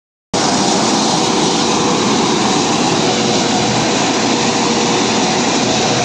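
Rubber-tracked compact combine harvester running steadily under load while cutting and threshing standing rice: a loud, even machine din with a steady hum running through it.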